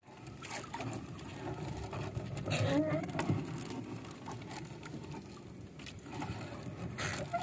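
Wet nylon fishing net being hauled by hand over the wooden gunwale of a small outrigger boat: mesh rustling and dripping, with water splashing at the hull. A short voiced sound about two and a half seconds in.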